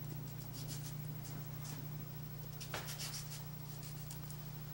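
Serrated steak knife sawing through a hand-held tomato, a series of short, faint rasping strokes, over a steady low hum.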